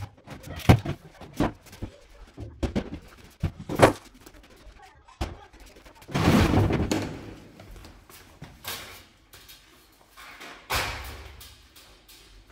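Irregular bangs and thuds of furniture being handled and thrown out, a quick run of knocks in the first few seconds and a longer crashing clatter about six seconds in.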